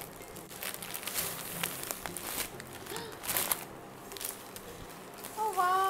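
Plastic packaging bags crinkling and rustling in several short bursts as wrapped clothes are handled, with a brief vocal exclamation near the end.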